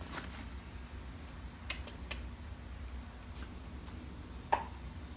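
Light clicks and taps of small objects being handled on a workbench, a few scattered over the seconds with a sharper knock at the end, over a low steady hum.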